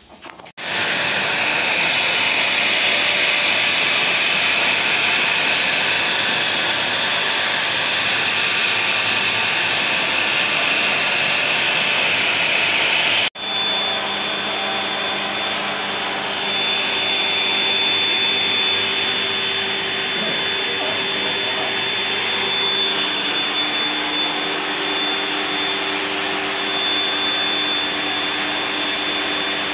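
Pet grooming blower dryer running with a steady rushing blow. It starts about half a second in and cuts out for an instant about thirteen seconds in, then resumes with a faint steady whine over the rush.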